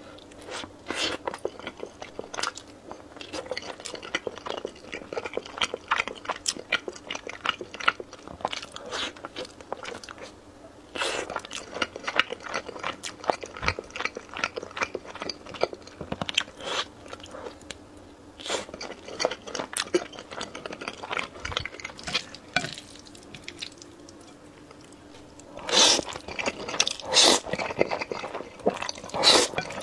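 Close-miked eating: a soft chocolate-coated bun being bitten and chewed with many wet mouth clicks and smacks. Near the end come louder bursts of slurping black-bean-sauce noodles.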